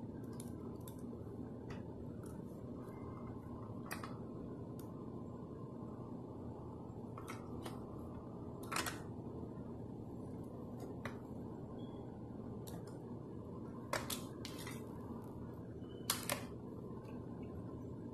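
Scattered clicks and clacks from a First Gear diecast front-loader garbage truck model as its parts are moved by hand and its front loader arms are raised. About a dozen short clicks, the loudest clustered in the second half, over a steady low hum.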